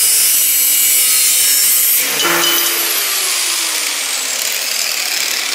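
Angle grinder with a cut-off wheel slicing through a 4-inch steel exhaust pipe, a loud steady grinding hiss. About two seconds in the cut finishes and the grinder winds down with a slowly falling whine.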